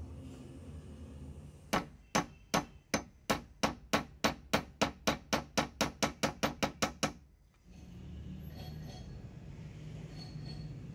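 A hammer strikes metal about twenty times in quick succession, sharp blows that speed up from about two to about five a second and stop abruptly. A low steady hum follows near the end.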